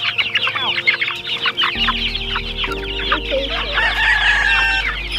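A flock of young chickens peeping nonstop: many short, falling chirps overlapping. About two seconds in, a low steady hum joins underneath.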